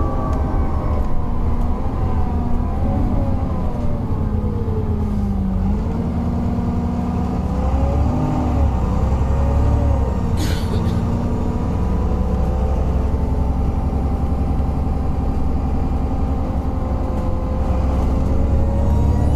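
Alexander Dennis Enviro 400 double-decker bus engine and drivetrain running while under way, with whining tones that rise and fall as it speeds up and slows. A brief hiss about halfway through.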